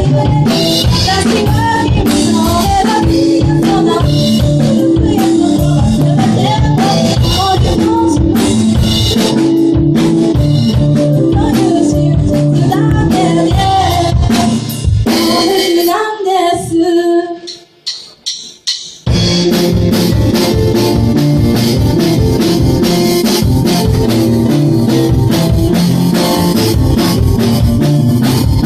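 A band playing a pop-rock song: singing over drums, bass and guitar. About 15 s in the band drops out, leaving a few sung notes and a brief near-silent pause, and the full band comes back in about 19 s in.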